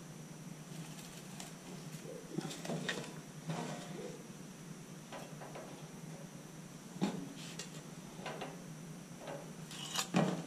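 Dry straw rustling and crackling in a plastic basket as hands settle a pigeon squab into it, in scattered short bursts with the loudest just before the end. A low steady hum runs underneath.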